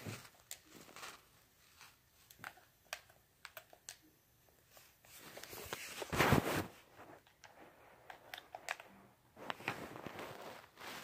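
Handling noise from a phone being moved over a book and blanket: scattered light clicks and taps, with one louder rustle a little past halfway.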